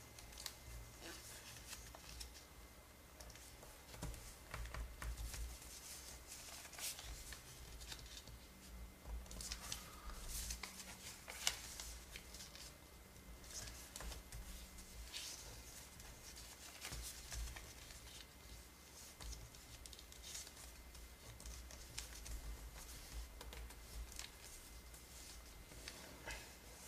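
A square sheet of origami paper being folded by hand, its corners brought to the centre and the creases pressed flat with the fingers. It makes faint, scattered rustling and scraping, with one sharper click about eleven seconds in.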